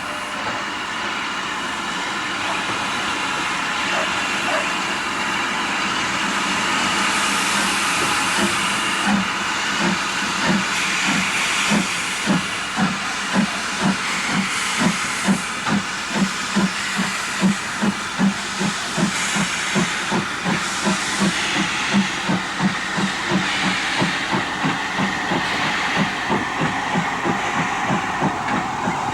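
NER class Q7 three-cylinder 0-8-0 steam freight locomotive working, with steam hissing and an even rhythm of exhaust beats about two a second that grows stronger about a third of the way in. The beats come quick for the engine's slow speed.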